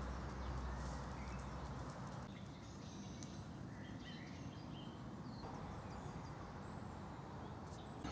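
Quiet outdoor ambience: a low, steady rumble with a few faint bird chirps.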